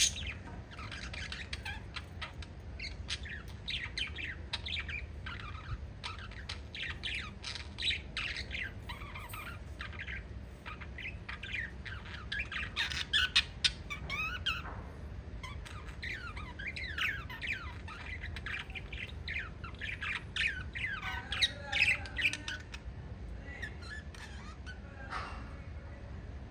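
A small flock of pet parrots chirping and squawking in quick, overlapping calls with hardly a pause, a few calls standing out louder now and then. A steady low hum runs underneath.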